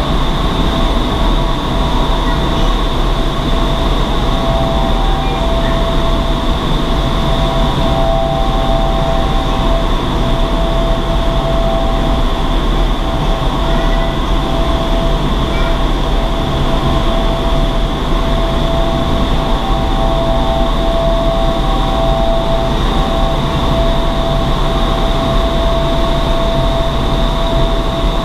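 Indoor skydiving vertical wind tunnel running at flying speed: a loud, steady rush of air through the flight chamber, with several steady whining fan tones above it.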